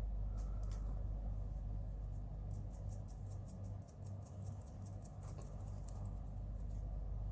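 Quick light clicking of small plastic and metal parts as a nut is fitted and screwed onto the long screw of a Mini 4WD car's bumper roller. The clicks come thickest from about halfway in, over a low steady hum.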